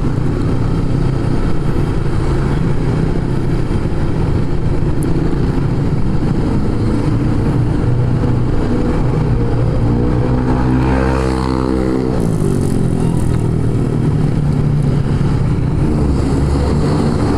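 Motorcycle engine running steadily while riding, with wind rumbling on the microphone. About ten seconds in, a second engine note shifts in pitch for a couple of seconds, as if another vehicle goes by.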